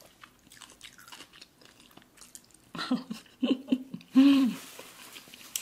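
Close-miked mouth sounds of a person eating black bean noodles: soft chewing and slurping. About three seconds in come a few short hummed sounds with the mouth full.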